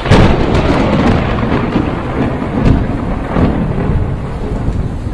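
A thunderclap just after the start, rolling into a long, low rumble of thunder over the hiss of rain, as a storm sound effect.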